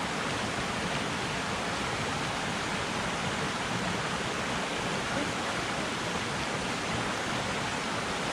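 Shallow, rocky stream running over stones in riffles: a steady, even sound of flowing water.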